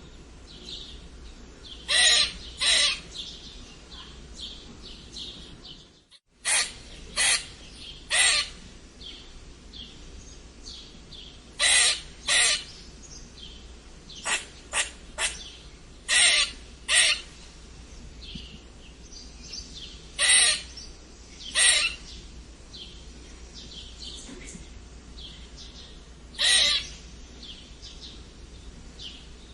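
A squirrel squeaking: short, sharp high calls, often in quick pairs at uneven intervals, with fainter chirps between them.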